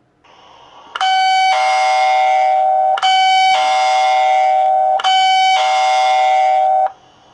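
Vanbar video doorbell's electronic two-note ding-dong chime, sounding three times about two seconds apart, played back from a recorded clip in the doorbell's phone app.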